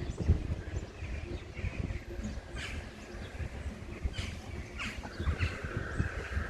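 Small birds chirping, a few short high calls scattered through, over a low uneven outdoor rumble.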